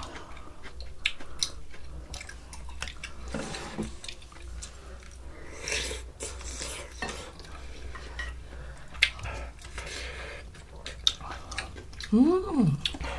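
Cutlery clinking and scraping against bowls and dishes during a meal, in scattered short clicks. Near the end a short hummed voice sound rises and falls in pitch.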